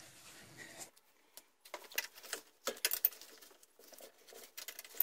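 Faint, scattered metallic clicks, taps and scrapes of a spanner working the clamping bolts under a homemade metal lathe's headstock, loosening them so the headstock can be shifted into line with the bed ways.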